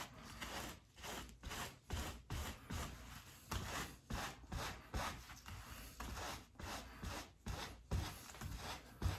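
A cloth scrubbing back and forth over the thin base of a skin hair system, wiping off leftover adhesive residue: quick, even rubbing strokes, roughly two or three a second.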